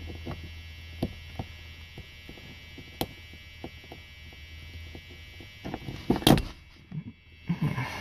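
Light clicks and taps of a hand staking tool against a brass ASSA Twin 6000 lock cylinder as its slide cap is pinned down, with a louder knock about six seconds in, over a steady low hum.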